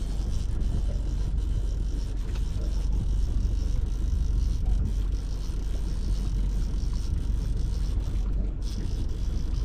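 Steady low rumble of a pontoon boat under way at trolling speed, its motor running.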